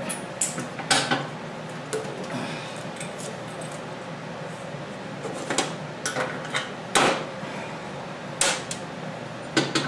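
Irregular sharp metallic clinks and clicks, about eight in all, as small metal parts are handled and fitted by hand at the pedal mount of a go-kart's frame.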